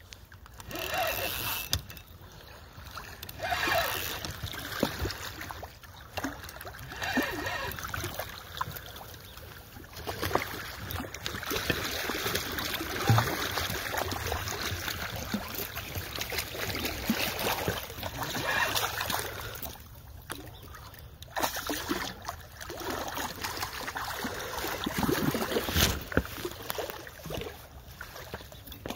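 Water of a shallow stream splashing and rushing, rising and falling in uneven surges.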